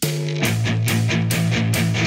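Rock theme music with electric guitar and a steady, driving beat, starting abruptly.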